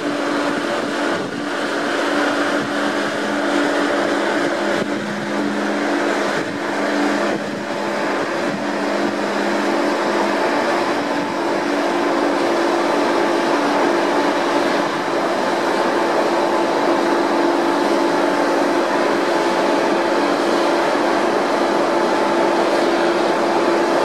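Ferry's engines and propellers running steadily under a rushing noise, with a steady droning hum. A lower hum drops away about ten seconds in. The ship is manoeuvring at the berth, its propeller wash churning the water.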